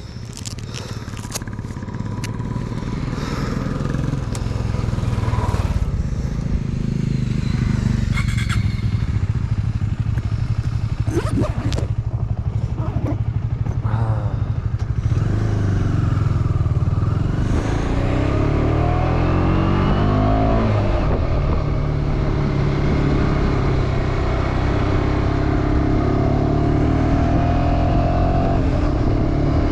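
KTM 250 Duke's single-cylinder engine under way, growing louder over the first few seconds. From about halfway it accelerates, its pitch rising and falling back several times as it shifts up through the gears.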